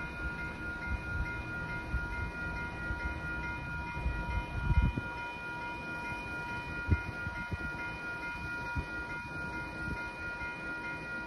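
Railroad grade-crossing warning bell ringing steadily in quick, evenly repeated strokes while the gates are down, over a low, uneven rumble with a couple of louder thumps about five and seven seconds in.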